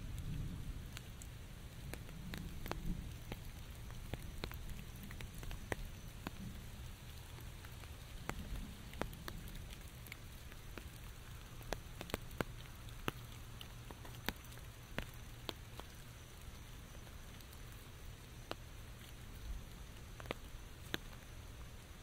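Light rain: scattered single drops tapping sharply on an umbrella overhead, a few a second, over a steady low rumble that is louder in the first few seconds and then fades, the tail of distant thunder.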